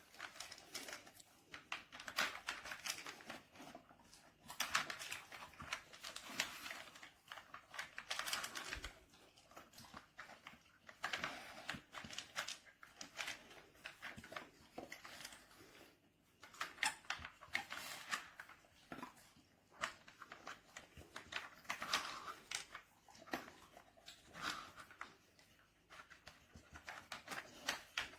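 Plastic dog puzzle toy being nosed and pawed at, giving faint irregular clicks, taps and rustles in short clusters every second or two.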